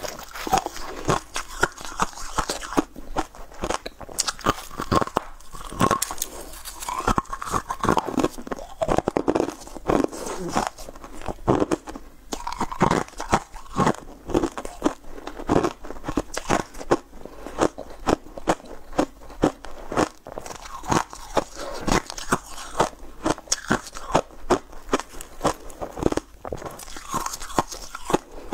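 A person biting and chewing crunchy blue swirl-shaped sweets close to a clip-on microphone: a steady run of sharp crunches, several a second, with chewing between.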